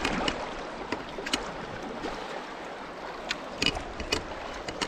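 River water rushing steadily, with several short sharp knocks or splashes scattered through it.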